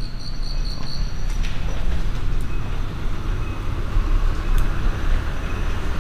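Steady low rumbling outdoor ambience, with faint high chirping in the first second and a half and a few faint clicks.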